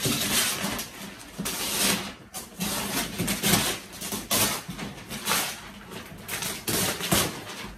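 Paper and cardboard rustling and scraping in quick, irregular bursts as a gift box is torn open by hand.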